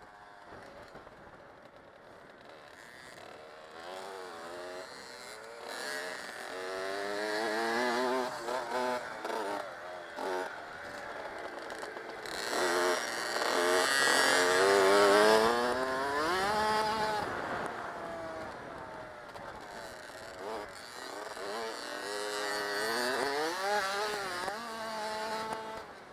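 Dirt bike engines revving up and easing off over and over, the pitch climbing and dropping with the throttle. Loudest about halfway through, and again near the end.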